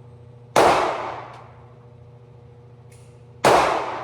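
Two gunshots at a shooting range, about three seconds apart, each sharp crack dying away over most of a second.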